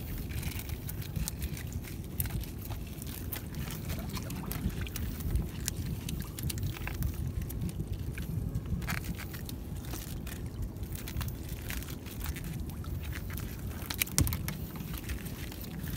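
Water sloshing against the side of a small fishing boat with wind on the microphone, and scattered light clicks and knocks as a gill net is hauled in and fish are picked from it.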